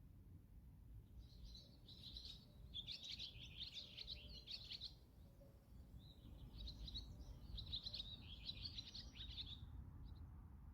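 Small birds chirping and twittering in two bouts of rapid high chirps, the second starting about six seconds in, over a faint low rumble.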